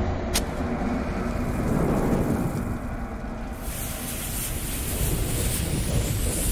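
Intro sound effects: a steady low rumble with a sharp click shortly after the start, joined about halfway by the hiss and crackle of a burning fuse and flames.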